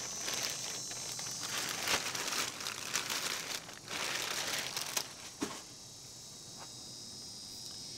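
Clear plastic bag crinkling as a rifle is pulled out of it and the bag is lifted away, dense crackling for about five seconds that then stops.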